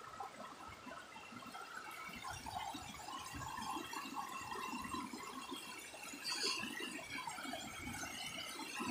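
River water rushing and gurgling over rocks in shallow rapids, fairly faint, with a brief louder splash of sound a little past six seconds in.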